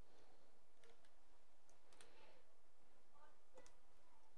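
Three faint, sharp small clicks, spread a second or so apart, from handling the reball stencil and its Kapton tape as it is positioned over the chip.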